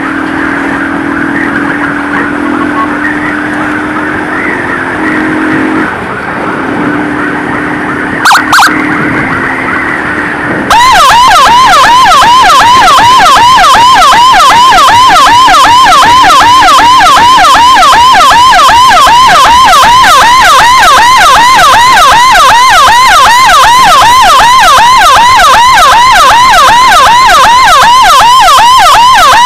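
Emergency vehicle siren in a fast yelp, rapid rising-and-falling sweeps several times a second, switching on suddenly about a third of the way in and staying loud from then on. Before it there is a fainter wavering siren, with two short loud blasts about eight seconds in.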